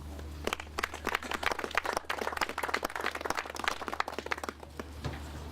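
A small crowd clapping. It starts about half a second in and dies away near the end.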